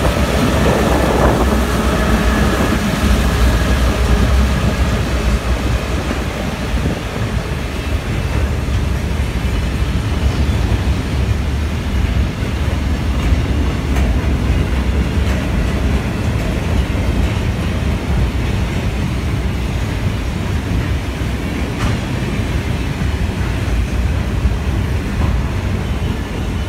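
A B class locomotive's EMD two-stroke diesel engine running as it passes close by, its tone fading over the first few seconds, then a long rake of loaded cement tank wagons rolling past with a steady low rumble and occasional clicks of wheels over rail joints.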